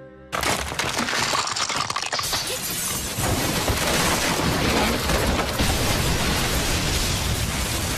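Animated sound effect of a house collapsing: a sudden crash about a third of a second in, then a long, dense rumble of crumbling walls and debris.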